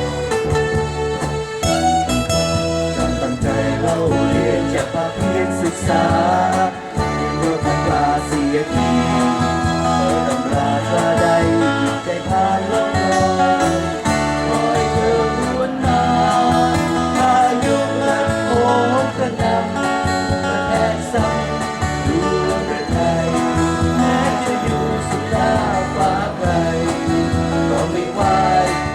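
Live band performing a Thai pop song: singing over guitar and a steady band accompaniment.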